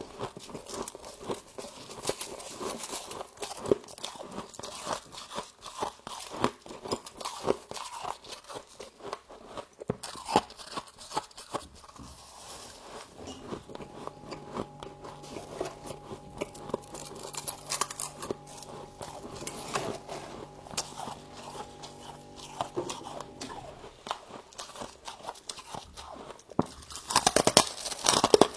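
Close-up crunching and chewing of frost, with many sharp crunches from each bite. A steady droning hum of several tones sits under it for a stretch in the middle, and the crunching grows louder and more crackling near the end.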